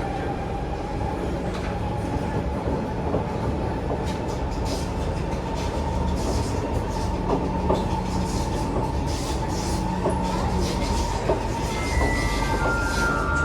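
Siemens C651 metro train running, heard from inside the car: a steady rumble of wheels on rail under a steady whine from the traction drive. From about 12 s, short tones begin stepping between different pitches from the train's drive.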